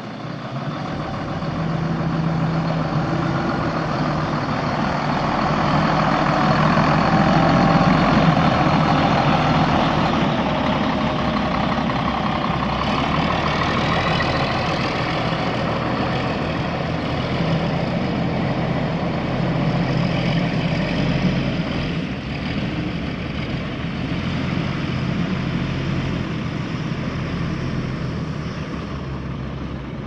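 Cummins ISM 10.8-litre inline-six turbo diesel of a Blue Bird LTC-40 coach bus running steadily. It grows louder over the first couple of seconds and is loudest a little later before settling.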